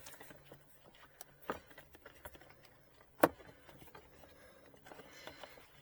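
Faint handling noises from hands working inside a Tesla Model 3's cabin air filter compartment, feeling for the lower filter's tab, with a click about one and a half seconds in and one sharp, much louder click about three seconds in.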